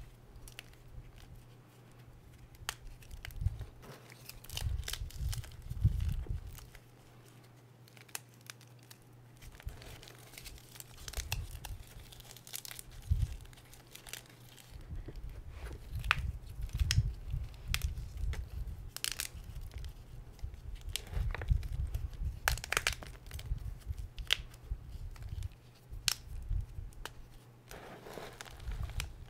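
Hands crushing and crumbling hard pieces of gym chalk in a tub of chalk powder: irregular crunches and sharp snaps, with a quieter stretch about seven seconds in.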